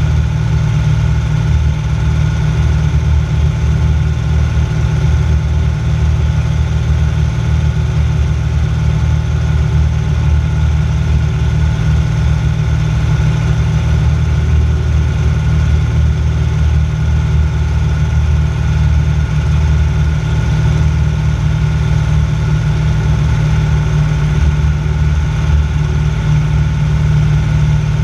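Aerocruiser float plane's piston engine and propeller running steadily in flight, a constant low drone heard from inside the cabin.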